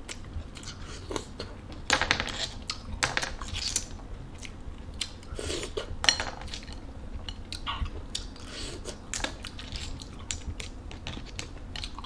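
Eating stir-fried clams by hand: clam shells clicking and clattering against each other and the plate, mixed with chewing. The small irregular clicks run throughout, with a few louder clatters about two, three and six seconds in.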